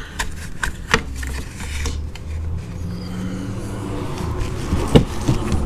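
Hard plastic Fangs skid protector being worked into place by hand against the Corvette's front air dam and radiator support, giving scattered knocks, clicks and light scraping, with a sharper knock about five seconds in. A steady low hum runs underneath.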